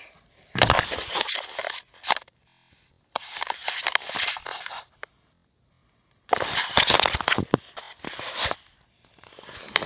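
Crackling, rustling handling noise from fingers rubbing over the camera's microphone, in three bursts of a second or two each with dead silence between them.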